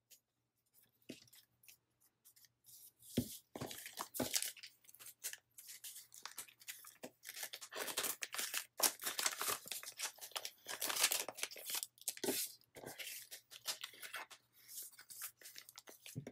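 Paper stickers being peeled off a card and their backing, with paper and plastic sleeve handling: a run of short crackling peels and rustles, densest about halfway through, with a few light knocks on the desk early on.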